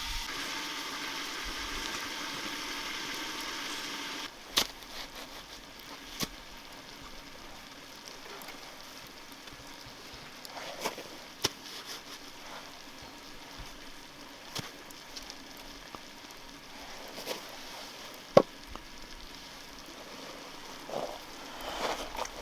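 Food sizzling as it fries in a hot pan, a steady hiss that cuts off about four seconds in. Then a quieter stretch with scattered sharp cracks and clicks, as from a wood fire crackling.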